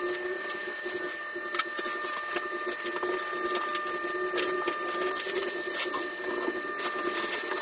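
Steady mechanical whirring with a slightly wavering hum, two fainter high steady tones and many scattered small clicks, like a small motor running.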